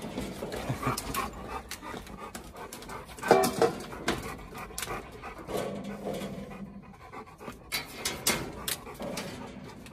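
Large dog panting hard with its tongue out, excited at the prospect of food after going hungry, with a few sharp knocks, the loudest about three seconds in.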